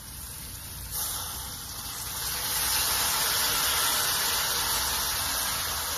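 Crab in hot curry oil sizzling in a pot as seasoned water is poured in. The sizzle swells about a second in and again about two seconds in, then holds steady.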